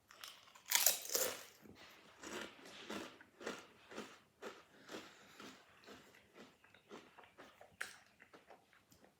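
A person biting into a Smith's Double Crunch potato chip and chewing it: one loud crunch about a second in, then crunching chews about two a second, growing fainter.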